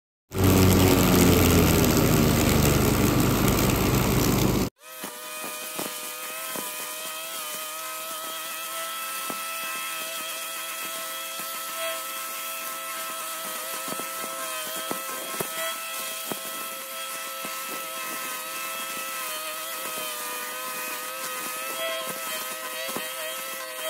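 Leaf blower running steadily and blowing dry leaves: a constant motor hum with a rush of air. It takes over about five seconds in, after a louder sound that cuts off abruptly.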